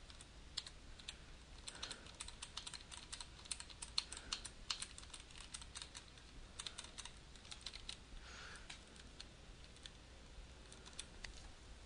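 Faint, irregular clicking of computer keyboard keys, coming in clusters of quick presses, over a low steady hum.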